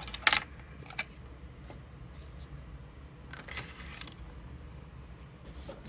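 Light handling noises of small hobby tools and parts at a workbench: a sharp click about a quarter second in, another about a second in, and a brief scrape or rustle around three and a half seconds, over a low steady hum.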